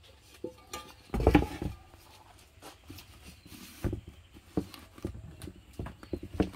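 Rustling and scattered light knocks as a string-tied banana-leaf bundle is handled and set into a metal pot, with one louder thump about a second in.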